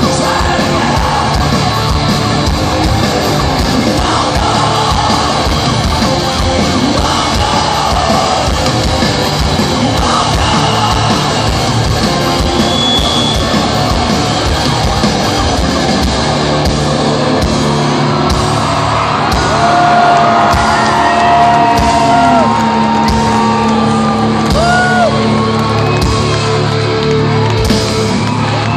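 Live heavy rock band playing loudly in a large hall, with a singer yelling over pounding drums and distorted guitars. About two-thirds of the way through the drumming stops and held chords ring on, while cheers and whoops rise from the crowd.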